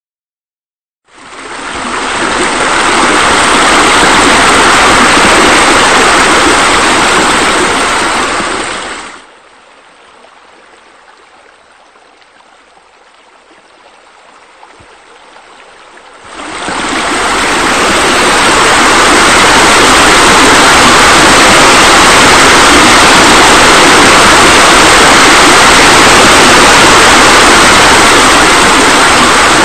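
Steady sound of water pouring, like pool water features spilling into a pool. It fades in about a second in, sinks to a faint hiss for several seconds in the middle, then comes back just as loud.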